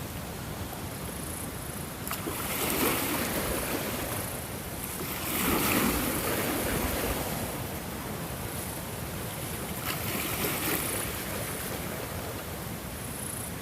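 Ocean surf: waves breaking and washing in as a steady rushing hiss that swells three times, the loudest swell around the middle.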